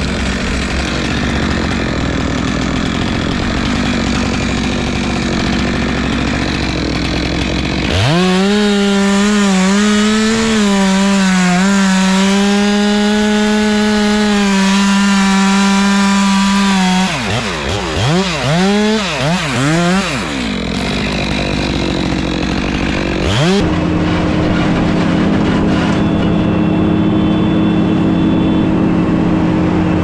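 Stihl MS 462 chainsaw cutting a felled log. About eight seconds in it goes to a steady full-throttle note for about nine seconds, then is revved up and down several times. For the last few seconds a different engine runs steadily at a lower pitch.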